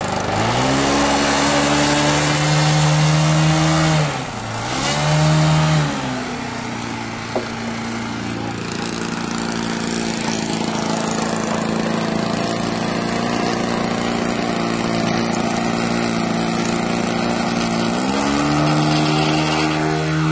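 Radio-control aerobatic model airplane's engine being throttled: revved up twice in the first six seconds, then idling steadily, then opened up again near the end as the plane takes off.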